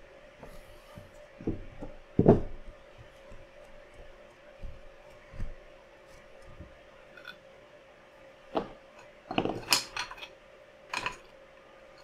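Hand assembly of a PC case, with parts and small hardware clicking and knocking against one another at irregular moments. The loudest knock comes about two seconds in and a cluster of clicks near ten seconds, over a faint steady hum.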